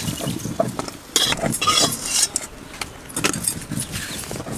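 Metal spatula scraping and clinking against a kadhai and a steel plate in a few irregular strokes, as fried pointed gourd pieces are lifted out of the pan.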